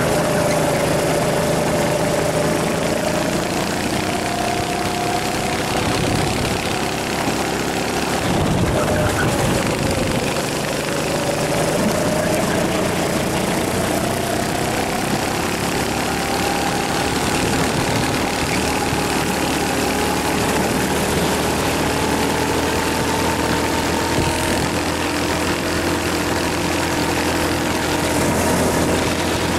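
Rental kart engine heard from on board while racing. Its pitch dips twice in the first ten seconds through the corners, then climbs slowly and steadily as the kart accelerates down a long straight.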